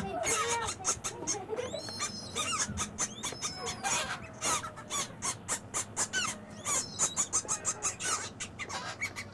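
Baby birds begging for food: rapid short chirps overlapping one another, with gliding high-pitched calls in among them.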